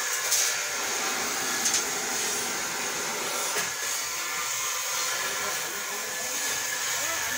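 Gas-welding torch flame hissing steadily as a filler rod is worked into a Honda Activa scooter engine casing, with two brief sharp pops about half a second and just under two seconds in.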